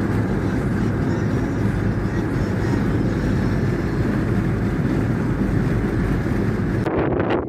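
Bulldozer's diesel engine running steadily under load, the sound changing abruptly near the end.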